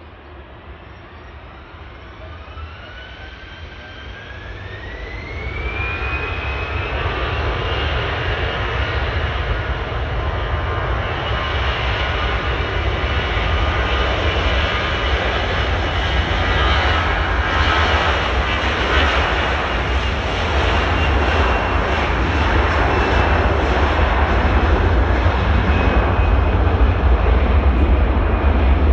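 Airbus A321 jet engines spooling up: a rising whine over the first six seconds or so levels off, then the engine noise grows louder and fuller, as when thrust is brought up for take-off.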